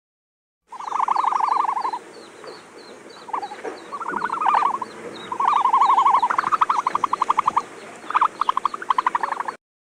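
Animal calls: a series of rapid pulsing trills, each spell lasting one to two seconds with short breaks between, over a fainter high chirp that repeats at an even rate.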